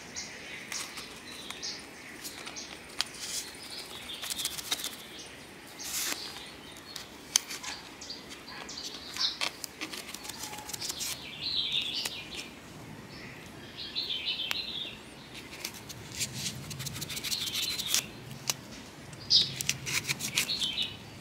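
Close handling sounds of chilli cuttings being planted: scattered sharp clicks and short scratchy rustles as the stems and a wooden stick are pushed through plastic mesh into foam.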